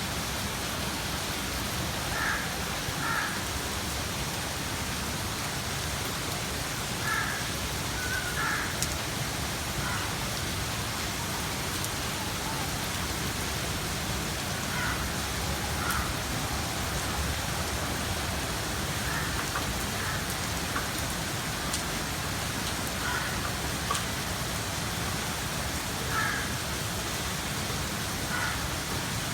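Steady rain falling and pattering on surfaces. Short higher-pitched sounds come through every few seconds.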